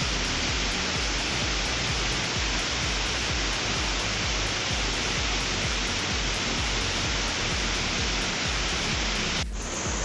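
Waterfall rushing steadily: a dense, even noise of falling water. Near the end it drops out for a split second and comes back slightly changed.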